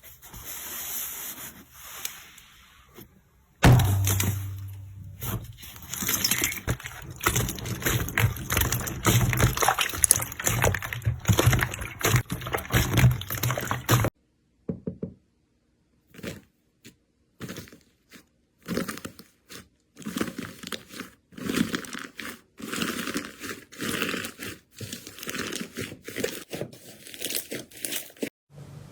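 Hands pressing and poking slime: a dense run of sticky clicks, crackles and squelches. The texture changes abruptly twice as one clip cuts to the next.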